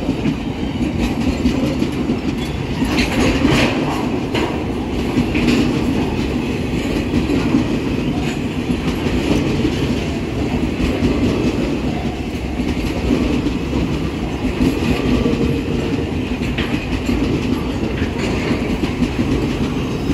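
Broad-gauge freight train of tank cars rolling past: steel wheels clacking over the rail joints over a steady low rumble, with a few sharper clanks about three to six seconds in.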